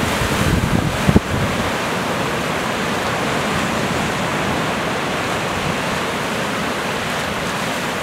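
Surf from rough sea waves breaking and washing in as a steady, dense rush. Wind buffets the microphone with a few low gusts in the first second or so.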